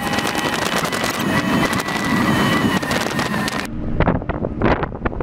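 Vehicle driving along a road, heard from inside the cabin: a loud rush of wind and road noise with a steady high whine. About three and a half seconds in, the rush cuts off abruptly, leaving a lower engine hum with scattered knocks.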